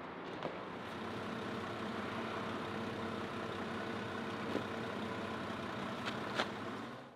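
Heavy construction-machinery engine idling steadily, with a few short clicks over it.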